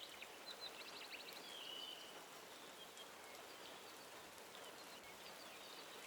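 Faint, steady soft rain, with birds chirping: a run of quick high chirps and a short trill in the first two seconds, then a few scattered calls.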